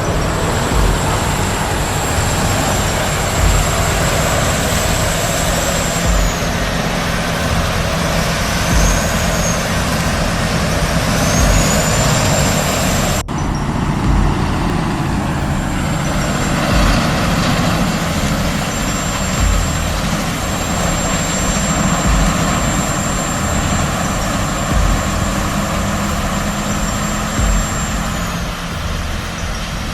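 Heavy diesel equipment running steadily under load, a deep engine rumble with a thin high whine over it. The sound breaks off sharply for an instant a little before the middle, then carries on.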